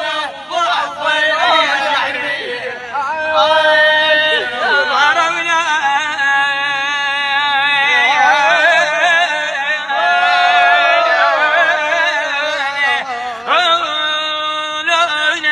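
A young Iraqi man singing a slow, ornamented melodic line, long held notes wavering and turning between phrases.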